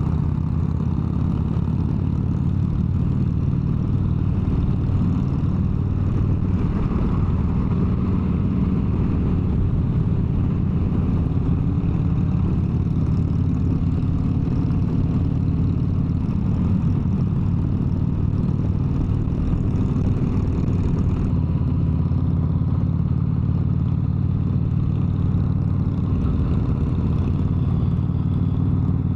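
Harley-Davidson V-twin motorcycle engine running steadily at highway cruising speed.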